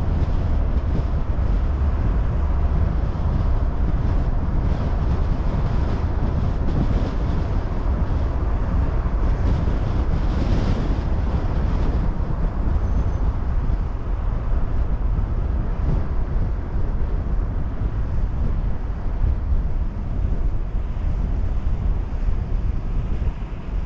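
Steady low rumble of wind buffeting a car-mounted camera's microphone, mixed with tyre and road noise from the car driving along.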